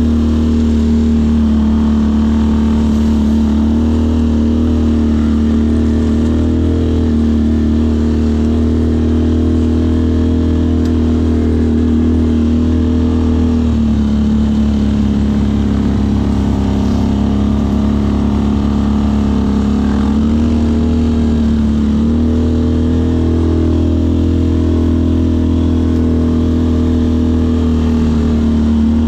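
Off-road vehicle engine running at steady revs, easing off slightly twice before picking back up.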